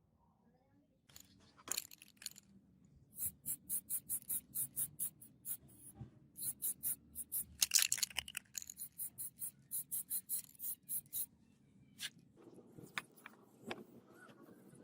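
Quick, even back-and-forth hand scraping strokes, about three a second, abrading the rusted steel of a katana blade. The strokes begin about a second in, run steadily until about three-quarters through, then give way to a few scattered scrapes.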